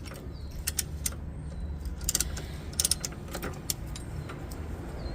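Sharp metallic clinks of a hand tool working against a car's front brake caliper and pads, being used to push the caliper pistons back: scattered single taps, then quick clusters near the middle, over a steady low rumble.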